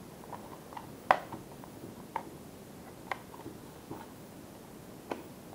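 Small plastic clicks and taps from fitting the plastic canopy onto a Flywing FW200 RC helicopter's frame by hand. The sharpest click comes about a second in, followed by a few softer ones roughly a second apart.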